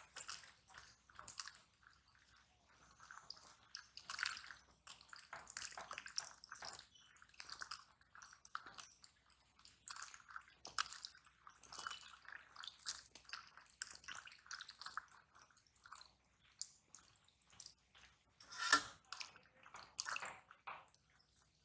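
Hands washing wet, cut bottle gourd pieces in a steel plate: an irregular run of small squelches, splashes and clicks as the pieces are rubbed and turned. One louder splash comes near the end.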